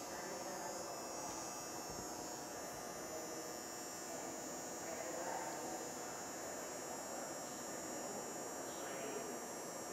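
Steady hum in a concrete parking garage, with a thin, constant high whine above it.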